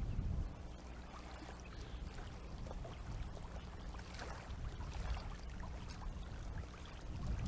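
Faint water trickling and splashing over a low steady rumble of wind on the microphone.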